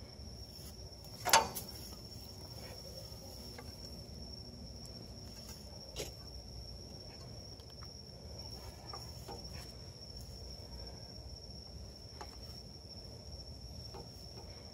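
Crickets trilling steadily in one high-pitched, even tone, with a single sharp knock about a second and a half in and a few faint clicks later.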